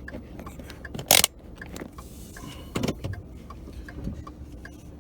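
Low steady rumble inside a car's cabin, broken by a sharp knock about a second in and another near three seconds, with a few light ticks between.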